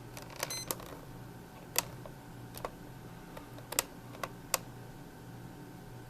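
Plastic buttons of a Mattel Barbie Wake with Me clock radio being pressed to set the day and time: about seven sharp, uneven clicks over a steady low hum.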